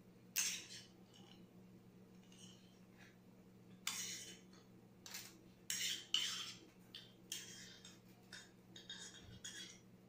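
Metal spoon scraping and clinking against a small ceramic bowl in a series of short, separate strokes, as bacon pieces are spooned out, with a faint steady hum underneath.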